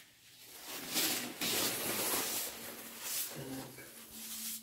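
Scraping and scooping of tile adhesive with a trowel in a bucket, with glove and clothing rustle, strongest a second or two in.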